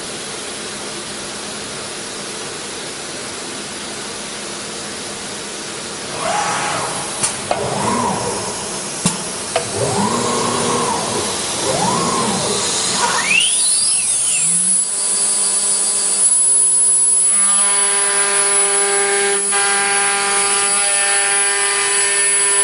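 ATC CNC router with Yaskawa servo drives: a steady hiss at first, then from about six seconds in, repeated rising-and-falling whines as the axes move. Near the middle the spindle winds up with a steeply rising whine and then holds a steady high whine as the router works the board.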